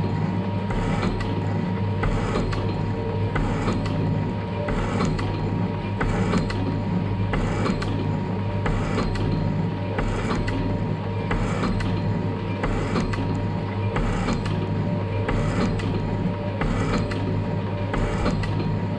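Metal shaper taking a 40 thou cut in metal: a steady motor and drive hum with a regular clack on each stroke of the ram, a little over one stroke a second.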